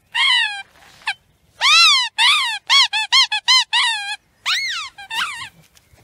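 A squeaky dog toy squeaking again and again as it is squeezed: high squeals that rise and fall in pitch, several longer ones with a quick run of about six short squeaks in the middle.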